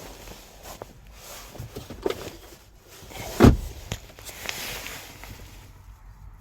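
A few dull thumps and knocks, the loudest about three and a half seconds in, with softer ones around it.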